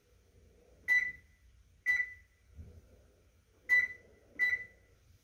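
Whirlpool electric range's control panel beeping as its keypad is pressed: four short, high beeps, two close together, a pause, then two more.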